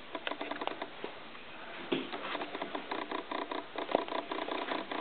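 Handling noise of a handheld camera: soft, irregular clicks and rubbing, with a sharper tap about two seconds in and another near four seconds.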